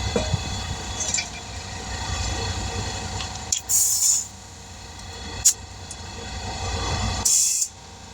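Two short bursts of high hissing, about three and a half seconds apart, with a sharp click between them, over a steady low rumble.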